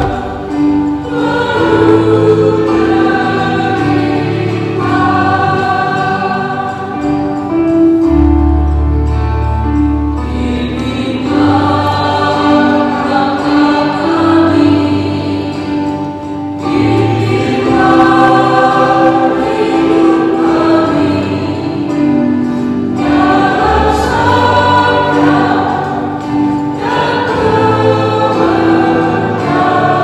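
A choir sings an Indonesian-language Catholic communion hymn in phrases of long held notes, over an accompaniment that holds long, low bass notes.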